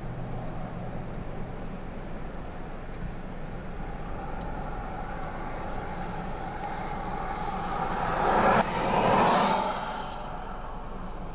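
Highway traffic passing close by: tyre and engine noise of an approaching pickup truck builds slowly, peaks about nine seconds in as it passes, then drops away over a steady background rumble.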